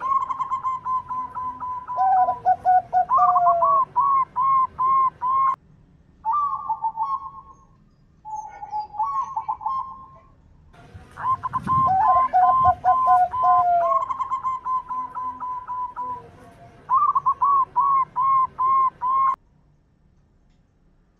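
Zebra dove (perkutut) cooing song: phrases of quick, evenly repeated cooing notes, some with lower falling notes under them. There are short breaks after about five and ten seconds, and the sound stops abruptly about two seconds before the end.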